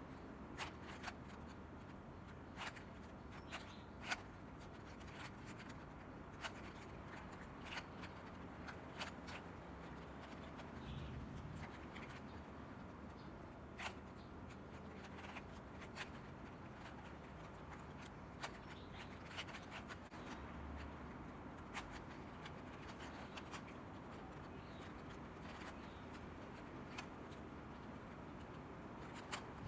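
A plastic 3x3 puzzle cube being turned by hand: faint, irregular clicks and clacks as its layers are rotated.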